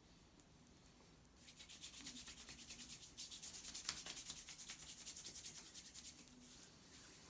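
Hands rubbing quickly back and forth over skin during a massage, a soft scratchy rasp of about six strokes a second. It starts about a second and a half in and stops about six seconds in.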